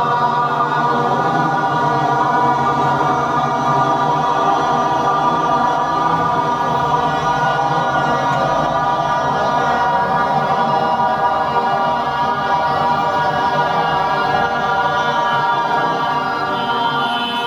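Several voices chanting one long, steady 'aaa' in unison on a single outbreath, as a yogic vowel-chanting breathing exercise.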